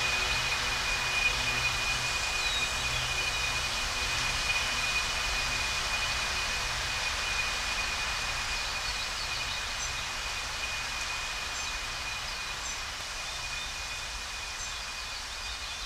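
Outro ambient sound bed: a steady hiss with a thin, high, steady tone and a low hum underneath, slowly fading. A few faint short chirps come through in the second half.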